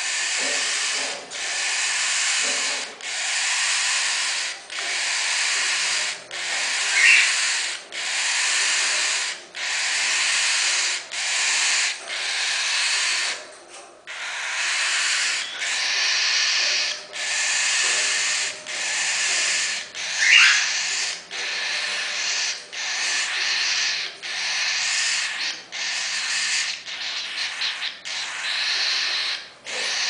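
Cockatiel chicks giving repeated raspy, hissing begging calls, about one long rasp every second and a half, with a couple of short chirps in between.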